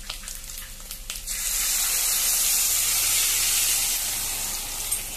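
Pork rib pieces crackle lightly in hot oil in a clay cazuela. About a second in, tomato and dried-chile salsa hits the hot oil and the pan sizzles loudly, easing off near the end.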